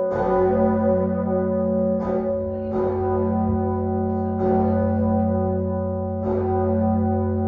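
Tower bells ringing: a struck note every one to two seconds, each rising over a dense, sustained ringing hum that carries on between strikes.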